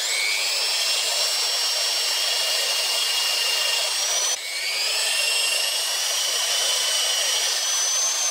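Electric drill boring into a grapevine trunk, cutting a socket for a drill graft; the motor whines steadily as the bit chews into the wood. About four seconds in the motor briefly slows and spins back up.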